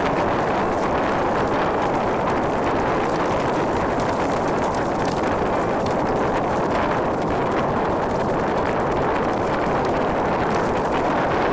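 Steady wind buffeting the microphone over the rush of water along a Sunfish sailboat's hull as it sails through chop, with faint knocks from small waves.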